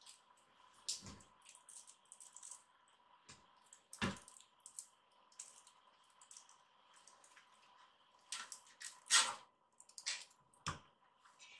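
Kittens' claws clicking and scrabbling on wire-mesh panels as they climb, with the panels rattling and a few thuds from landings and jumps, the loudest about four and nine seconds in.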